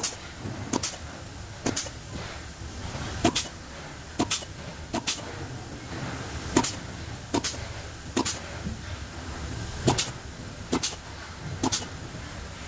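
Sharp tool knocks or taps during disassembly of an electric motor, about a dozen at uneven intervals of roughly a second, over a low steady hum.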